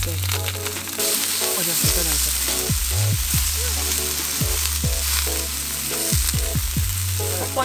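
Beef slices and whole mushrooms sizzling on a hot round griddle pan, a steady frying hiss, with background music playing.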